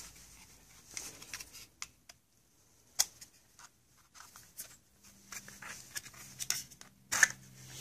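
Hard plastic pistol holster and a Sig Sauer P238 being handled and fitted together: scattered small clicks, taps and scrapes, with one sharp click about three seconds in and a louder clatter near the end.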